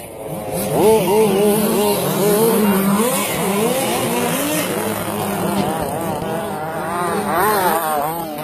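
Racing RC truck motors revving up and down in pitch again and again as the trucks accelerate and slow around the track.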